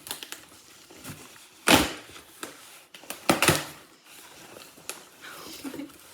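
A package being handled and opened: crinkling and rustling of the packaging with scattered clicks, and loud sharp knocks about two seconds in and again around three and a half seconds in.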